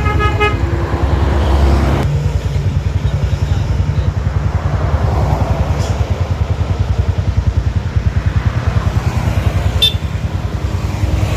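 A motor vehicle engine running steadily, a low throb with fast, even pulsing, as if heard while riding along. A brief stacked tone sounds at the very start.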